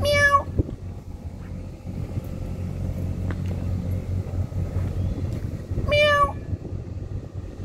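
A cat meowing twice, once at the start and again about six seconds later, over a steady low background rumble.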